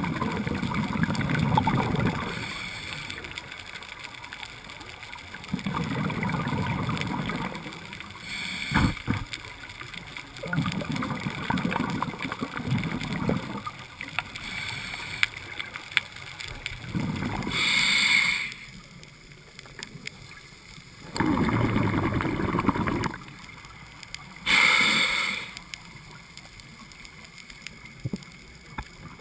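Scuba diver breathing through a regulator, heard from a helmet or hand-held camera housing: about six breaths, each exhalation a burst of bubbles rumbling for a couple of seconds, with short hissing draws between. The uploader takes the diver's breathing in this dive as a sign of shivering from cold water.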